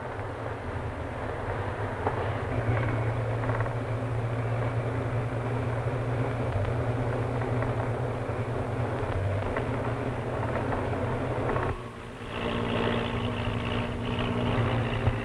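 Open touring car's engine running and road noise while driving through town streets, a steady hum. About 12 s in it dips briefly and a different, higher engine note takes over, the motorcycle following behind.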